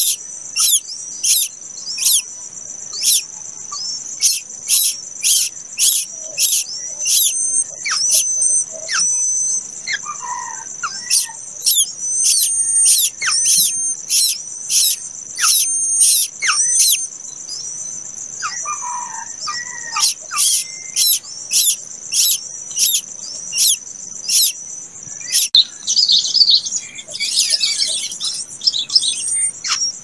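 Nestlings begging: sharp, high chirps repeating about twice a second, pausing twice, over a steady high-pitched insect drone; near the end the chirps run together in a jumble.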